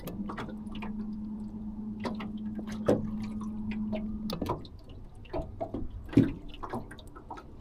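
Small splashes and clicks of water lapping against a jon boat's hull, with a steady low hum for the first four seconds or so that then cuts off.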